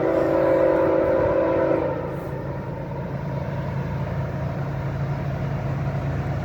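A multi-chime train air horn sounds a steady chord, which cuts off about two seconds in. A steady rumble follows as the freight train passes the crossing.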